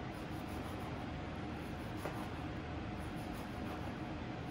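Steady background hum and hiss of room noise, with a knife slicing through cooked lamb on a plastic cutting board and one faint tap of the blade on the board about two seconds in.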